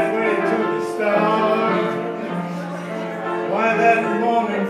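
Live piano-bar music: a man singing, holding and bending long notes, over piano accompaniment.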